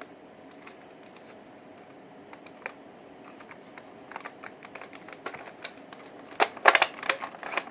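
Scattered light plastic clicks and knocks of toy guns being handled. They get busier, with a loud cluster of clatter near the end.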